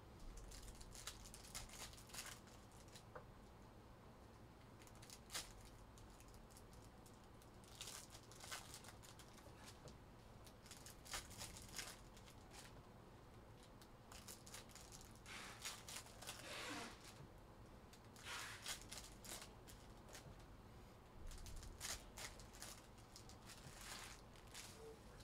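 Faint, scattered rustling and crinkling of trading card packs and cards being opened and handled, in short irregular bursts.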